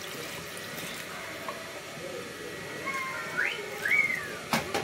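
Water poured from a jug into a hot pan of mutton keema, a steady pouring hiss. About three seconds in come a few short whistling glides, then two sharp clicks near the end.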